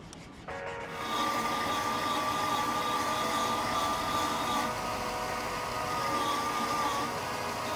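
Brief sandpaper scratching, then a benchtop belt sander running with a steady whine. Its pitch dips briefly a few times as the oak handle is pressed against the moving belt.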